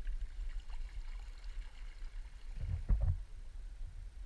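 Canoe being paddled slowly: quiet strokes and water trickling off the paddle over a steady low rumble, with a short cluster of dull knocks a little under three seconds in.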